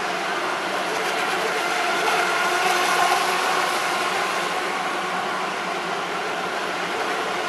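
Electric radio-controlled Electra-class model racing boat running at speed across the water: a steady motor whine over the hiss of its hull and spray, swelling a little about two to three seconds in.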